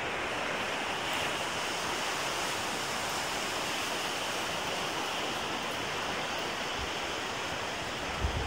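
Ocean surf breaking and washing up the beach, a steady, even rush of waves.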